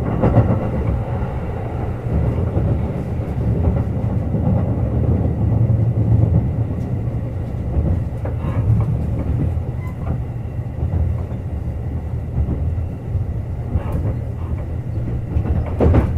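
Kintetsu 21000-series Urban Liner Plus express train running at speed: a steady rumble of wheels on rail and running gear, with a few short clacks about halfway through and near the end.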